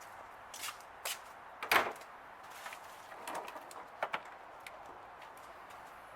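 Scattered clicks and knocks of handling, with one louder knock about two seconds in.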